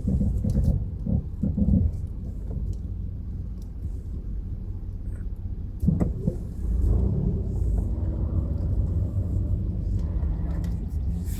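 A car driving slowly, with a steady low road and engine rumble. A single knock comes about six seconds in.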